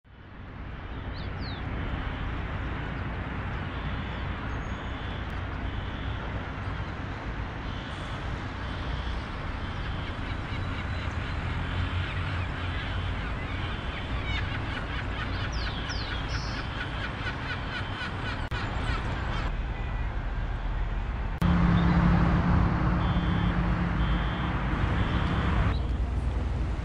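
Outdoor harbour ambience: a steady wash of wind and distant traffic rumble, with birds chirping and calling now and then. About 21 seconds in it turns abruptly louder, with a steady low engine hum for a few seconds.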